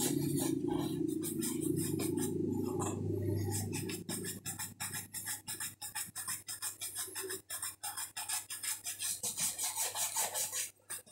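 Bristle shoe brush buffing a waxed leather shoe in quick back-and-forth strokes, about three to four a second, raising a shine on the polished leather. A low steady drone sits under the first few seconds and then fades.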